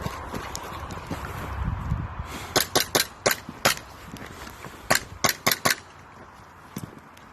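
Airsoft gun firing: a quick run of five sharp shots, then four more about a second later. Before them there is a low rumble of movement.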